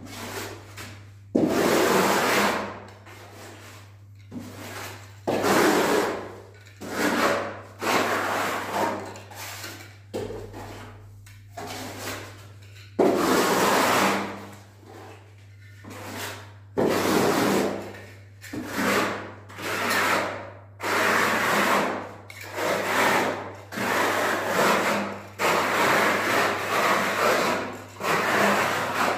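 Plastering float scraping over bark-beetle (koroed) decorative plaster on a wall, in repeated strokes about a second long with short pauses between.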